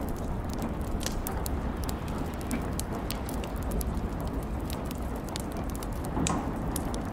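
A steady rushing noise with irregular crackling ticks scattered throughout.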